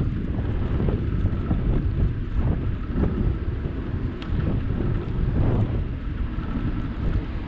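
Wind buffeting the microphone of a camera on a moving bicycle: a loud, uneven low rumble.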